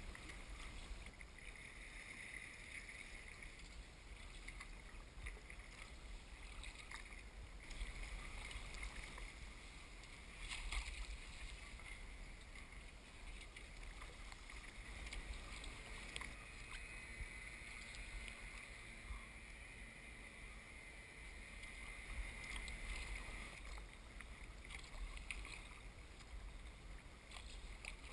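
Kayak paddling: water splashing and dripping off the paddle blades and washing along the hull in a faint steady wash, with a few louder splashes, over a low steady rumble.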